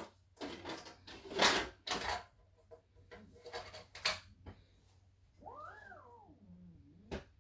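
A few seconds of rustling and knocking from things being handled, then a house cat meows once, a drawn-out call that rises and falls, about five and a half seconds in. A short click follows near the end.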